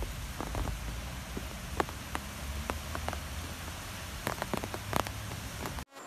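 Rain falling on a surface: a steady hiss with scattered sharp drops splashing close by. It cuts off suddenly just before the end, and a fainter, even hiss follows.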